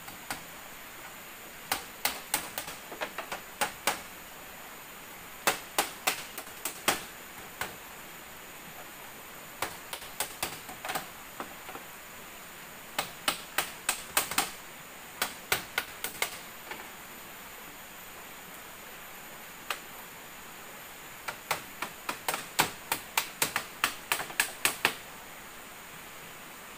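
Hammer strikes fixing split-bamboo floor slats: sharp knocks in quick runs of several a second, with pauses between runs and the longest run near the end.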